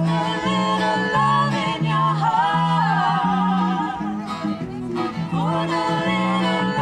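Music: a voice singing a wavering, held melody over acoustic guitar accompaniment.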